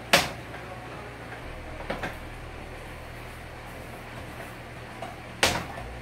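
Handling noise from gloved hands working wire splices at a plastic junction box: two loud, sharp noises about five seconds apart, with a fainter double one around two seconds in. A steady low hum runs underneath.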